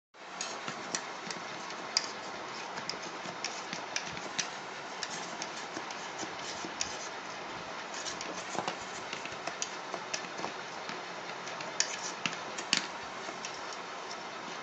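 A knife scraping and tapping against the inside wall of an aluminium pot as it is run around the edge of a baked cake to loosen it. The knife makes irregular small clicks and ticks over a steady hiss, with a few sharper taps near the end.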